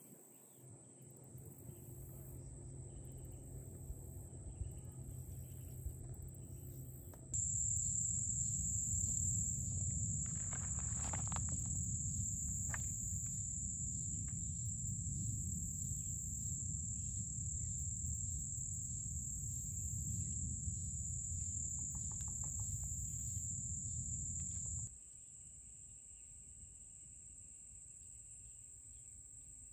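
Steady high-pitched drone of a summer insect chorus, continuing through several cuts. For a long middle stretch a louder low rumble on the microphone lies beneath it.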